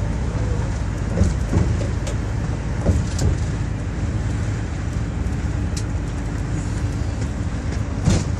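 Greyhound coach engine running steadily, heard from inside the passenger cabin as a low rumble with a constant hum, with a few short knocks and rattles in the cabin.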